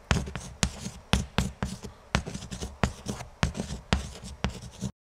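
Writing sound: a pen or chalk-like tool scratching out quick strokes, with sharp taps several times a second, cutting off abruptly near the end.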